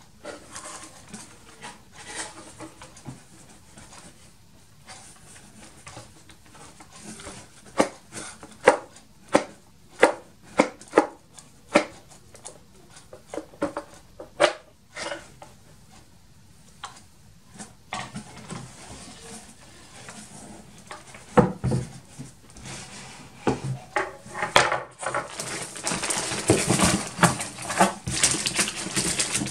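Hands handling the parts of a balsa-and-plywood model airplane kit: scattered light knocks and clicks of the fuselage and parts being turned over, then, near the end, crinkling of plastic parts bags being rummaged through in a cardboard box.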